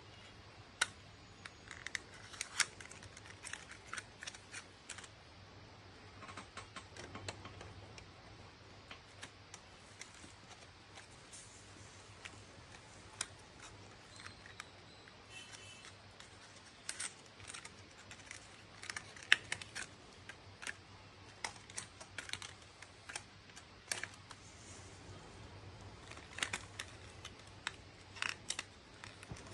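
Irregular light clicks and taps of small cardboard boxes and a plastic USB LED bulb being handled and plugged into a power strip's USB port, over a faint low hum.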